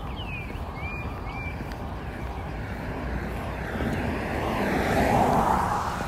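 A vehicle passes by: its noise builds over a few seconds to a peak near the end, then starts to fade. A few short bird chirps come in the first second or so, over a steady low background rumble.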